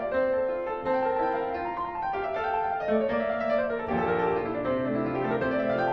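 Background piano music, a run of sustained notes, with lower bass notes coming in about four seconds in.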